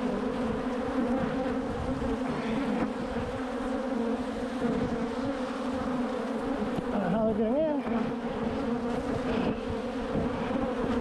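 Honeybees from an open hive buzzing in a steady drone right around the microphone, single bees passing close. The colony is defensive and stinging the beekeeper.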